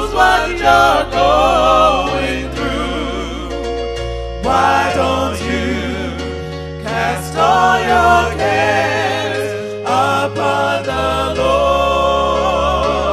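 Gospel song: a sung melody with a wide vibrato, in phrases of a few seconds, over steady bass notes that change in steps.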